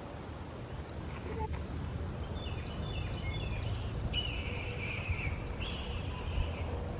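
Red-tailed hawks calling: a quick run of four short, falling notes about two seconds in, then two longer hoarse screams of about a second each.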